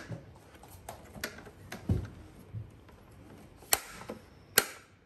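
Hard plastic parts of a vacuum's hard-floor nozzle clicking and knocking as a snap-on adapter is fitted and handled, with a duller knock about two seconds in and two sharp clicks near the end, the loudest.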